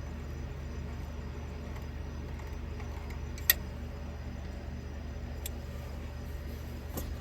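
A few sharp clicks of small metal parts and hand tools, the loudest about halfway through, over a steady low hum.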